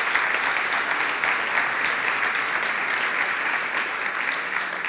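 Large audience applauding: a steady clatter of many hands clapping that begins to thin out near the end.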